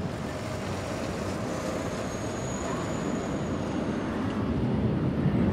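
Airbus A319neo jet engines at taxi power: a steady rush with a faint high whine, growing louder near the end.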